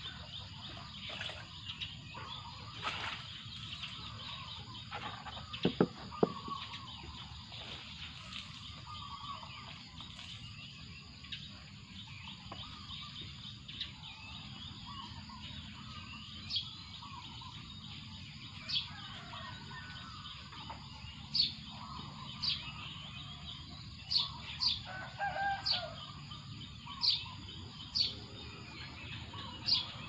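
Countryside birdsong: many birds chirping at once, and in the second half one bird repeating a short, high call every second or two. Two sharp knocks about six seconds in.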